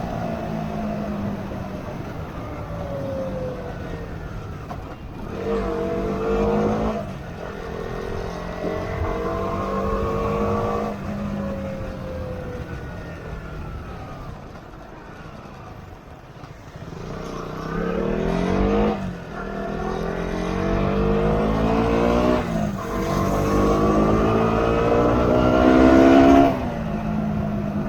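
Motorcycle engine accelerating hard, its pitch climbing through the revs and falling back at each gear change, several times over; the loudest run ends with a sudden drop about four-fifths of the way through.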